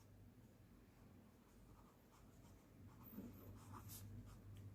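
Near silence, then faint scratching of handwriting from about three seconds in, as the next point is written out.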